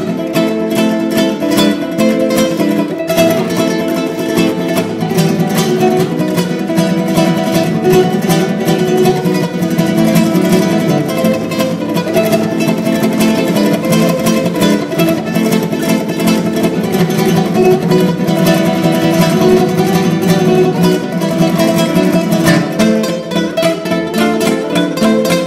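Background music: rapid plucked acoustic guitar playing a dense run of notes.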